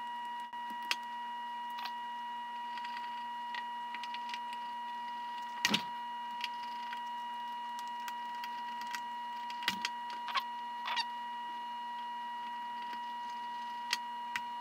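Scattered small clicks and taps of tools and gloved fingers working on a partly disassembled iPhone 3GS, the two sharpest about 6 and 10 seconds in. Under them runs a steady high whine with fainter overtones.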